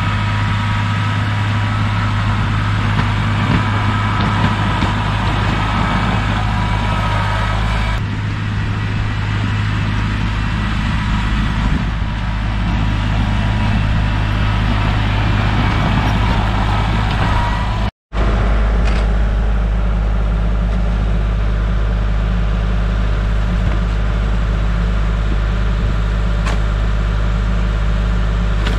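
Kubota L3301 compact tractor's diesel engine running steadily, with a brief break in the sound about two-thirds of the way through, after which its low hum is stronger.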